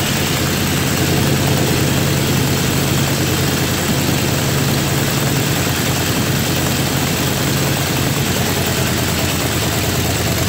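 Jacobs R-755 seven-cylinder air-cooled radial aircraft engine running steadily at idle, with no revving.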